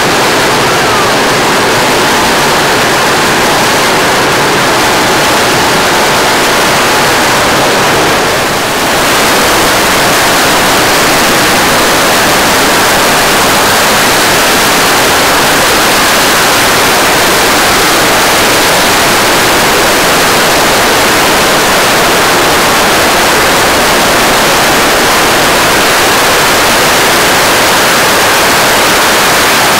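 Strings of firecrackers going off without a break, the pops so dense that they merge into one loud crackling roar, dipping briefly about eight seconds in.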